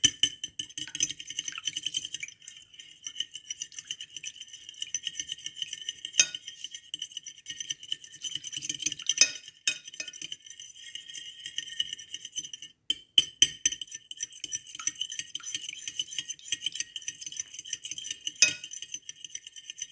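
A metal fork rapidly beating egg and milk in a glass dish, with quick, steady clinking and scraping of the tines against the glass. There are a few louder knocks along the way.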